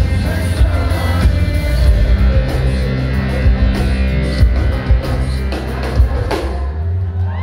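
A live rock band playing electric guitars, bass and a drum kit. Near the end the drums and bright guitar sound drop away, leaving a low sustained chord ringing.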